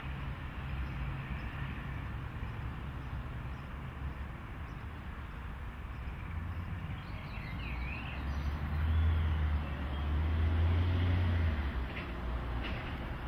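Steady low rumble of road traffic, swelling louder for a few seconds from about eight seconds in as a vehicle passes, with a faint brief bird chirp shortly before.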